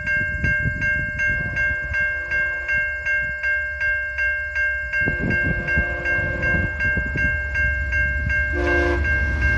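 Railway crossing bell ringing steadily while an approaching VIA Rail passenger train's horn sounds two long blasts and then a short one, the opening of the long-long-short-long grade-crossing signal. The train's rumble grows louder near the end.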